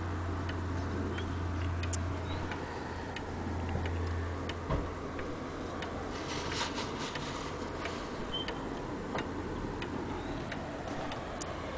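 HAC German wall clock's pendulum movement ticking steadily, about two ticks a second, over a low hum that fades about five seconds in.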